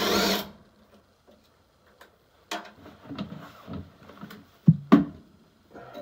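Cordless drill-driver runs in one short burst, backing out a screw on a furnace's pressure switch. Then handling clatter as parts are moved, with two sharp knocks, the loudest sounds, about a second before the end.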